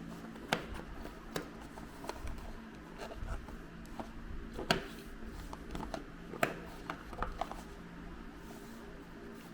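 Small plastic toys being handled: irregular light clicks and taps, a few of them louder, with soft rubbing, over a steady low hum.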